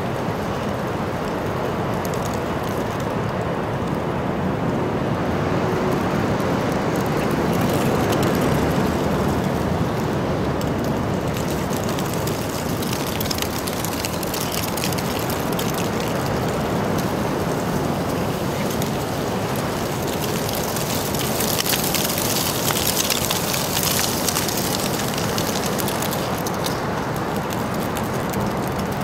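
Steady outdoor street noise with traffic, swelling about eight seconds in and again near the end, where a fine crackling rattle joins it.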